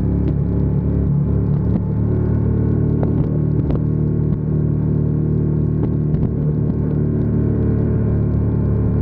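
Ducati Diavel 1260S's 1262 cc L-twin engine running at a steady pitch, with a few faint clicks.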